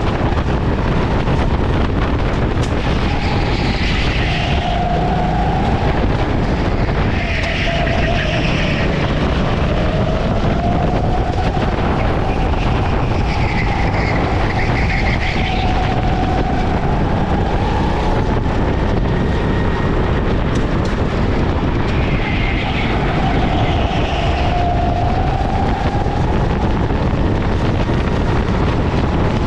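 Racing kart engine heard onboard at speed, its pitch rising and falling every few seconds as the kart accelerates and slows through the corners, under heavy wind noise on the microphone.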